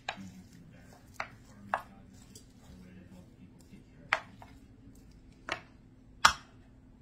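Wooden spoon spreading a thick rice, chicken and cheese mixture in a ceramic baking dish, knocking sharply against the dish about six times at uneven intervals, the loudest near the end.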